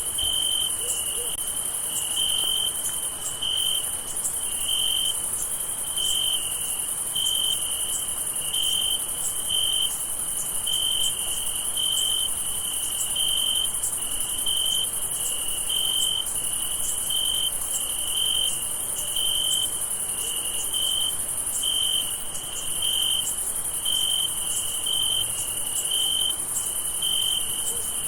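Crickets chirping in a night chorus: a steady, regular chirp of about one to two pulses a second over a continuous high-pitched insect trill.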